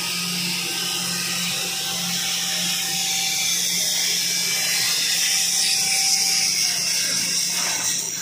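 CNC plasma cutter's torch cutting through a steel sheet: a steady, loud, high hiss, with a low hum beneath it.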